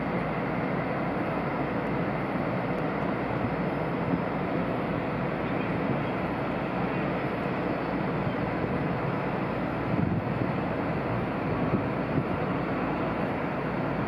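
A large cruise ship's thrusters running steadily as it manoeuvres off the pier: a continuous rumble and rush of churned water, with no break.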